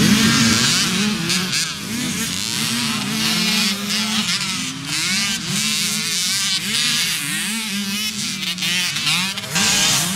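Several small two-stroke youth motocross bikes racing together, their engines revving up and down in overlapping, constantly changing pitches.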